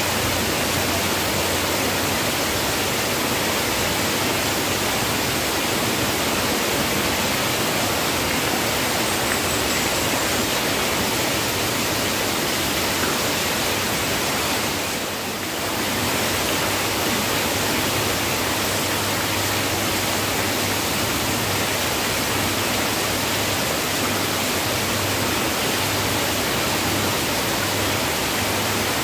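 Heavy rain falling steadily on foliage, paving and water, with runoff pouring off a roof edge. The level briefly dips about halfway through.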